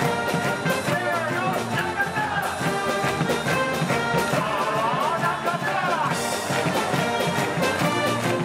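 A cheering section's brass band playing a fight song over a steady drum beat.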